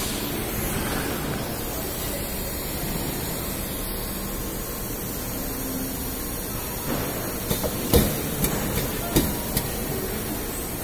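Pad printing machine at work: a steady hiss, with a quick run of about five sharp clicks and knocks about three quarters of the way through.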